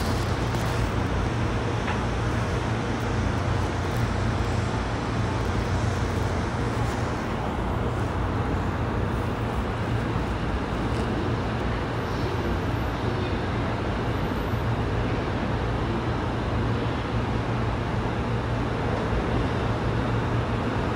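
Running noise inside a JR East E233-3000 series commuter train's motor car (MT75 traction motors, Hitachi IGBT-VVVF inverter): a steady low rumble of wheels and running gear on the rails.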